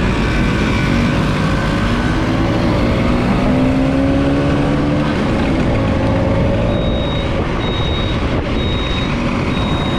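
Vespa scooter engine running while riding, with steady road and wind noise; its note rises slowly in the middle. From about seven seconds in, a short high beep repeats about once a second.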